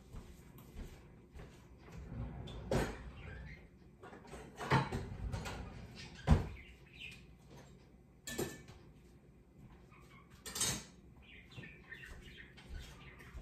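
Kitchen clatter: about five separate knocks and bangs a second or two apart from cupboard doors and dishes being handled, the sharpest about six seconds in.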